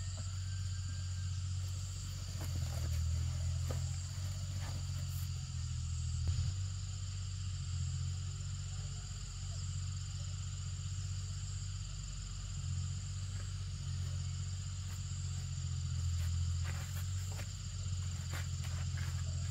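Steady, high-pitched insect chorus over a low, steady rumble, with a few light clicks and rustles, more of them near the end.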